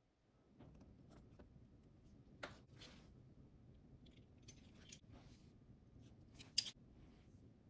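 Faint clinks and scrapes of a metal measuring spoon against a stainless steel mixing bowl as dry powders are tipped in, a handful of short taps with the sharpest one about six and a half seconds in, over low room hiss.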